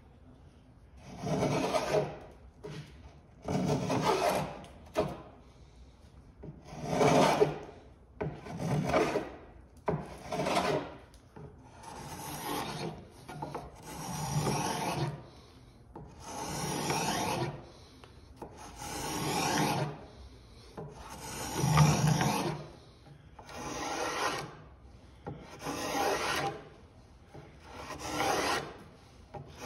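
Spokeshave cutting shavings along an ash tiller, in a steady run of strokes about every two seconds, each a second or two long.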